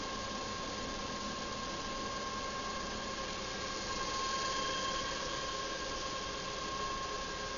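Industrial electro-discharge machine running during machining: a steady hiss with a constant high whine, swelling slightly about halfway through.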